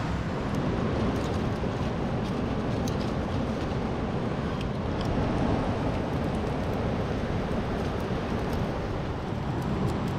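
Steady rushing of a fast river, with faint scattered crackles from an open fire.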